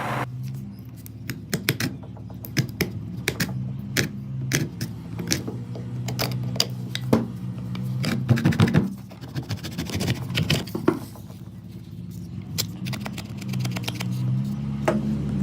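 Irregular sharp clicks and taps, like small hard parts being handled, over a low steady hum whose pitch shifts near the end.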